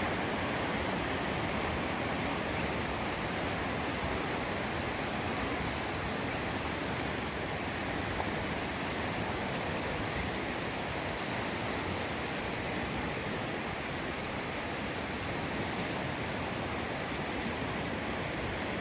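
Steady rushing of the Salmon River's flowing water, an even, unbroken noise.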